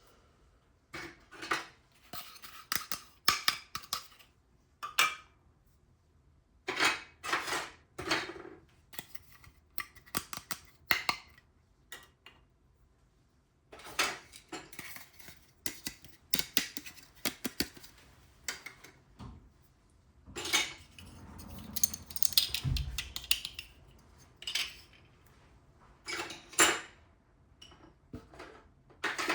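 Small hard plastic toy pieces being handled, set down and clicked together, giving irregular sharp clacks and clicks with pauses between them. A denser patch of rustling and clatter about two-thirds of the way through ends in one low thump.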